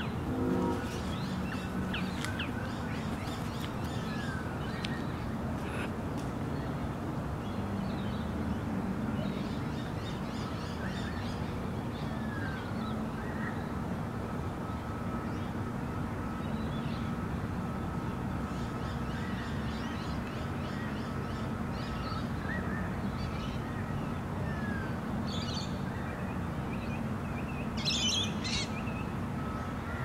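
Dawn chorus of many Australian birds calling and singing over a steady low rumble, with short falling whistles scattered through it. Near the end come loud, shrill bursts of lorikeet screeching.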